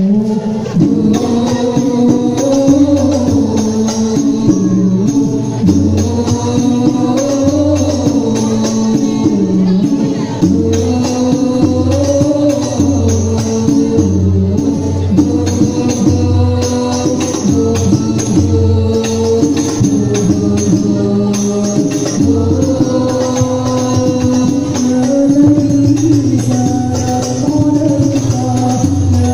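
Live hadrah al-Banjari sholawat: rebana frame drums beating a steady, repeating rhythm under voices singing a devotional melody, heard through loudspeakers.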